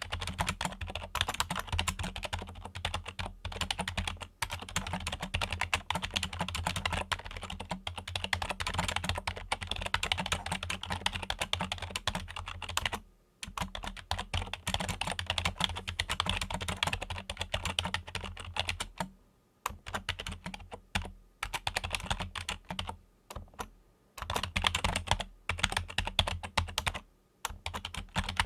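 Fingers typing fast on a Logitech computer keyboard: a dense run of key clicks, broken by a few short pauses.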